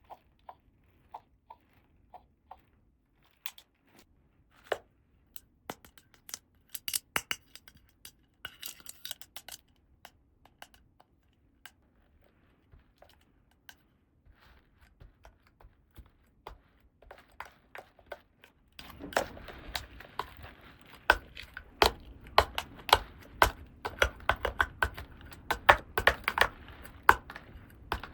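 Hands handling small plastic toy pieces and packaging: scattered sharp clicks and taps, then about two-thirds in a continuous rustle starts up with dense, louder clicking.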